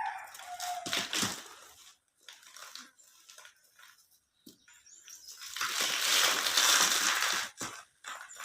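Soft pink cement cubes crushed and crumbling. There are short crunches about a second in, then scattered crackles, then a longer, louder crumble from about five and a half to seven and a half seconds in.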